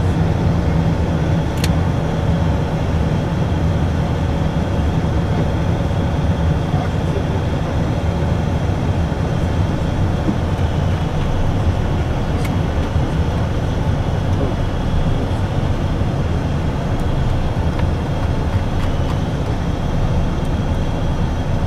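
Steady cockpit noise of an Embraer Phenom 100 light jet in flight on approach: airflow and its two Pratt & Whitney PW617F turbofan engines making a constant low rumble, with two faint clicks.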